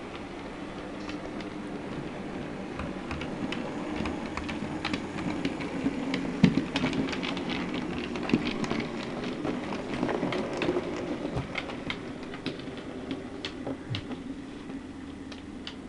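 Hornby K1 OO-gauge model steam locomotive running with a coach: a steady motor hum with irregular clicks of the wheels over rail joints and points, busiest in the middle.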